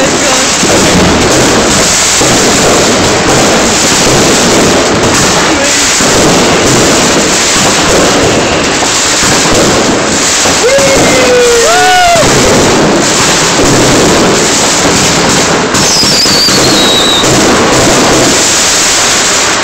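Loud, unbroken barrage of New Year's fireworks bursting and crackling, with a few whistles that glide in pitch, one falling high whistle a little past three quarters of the way through.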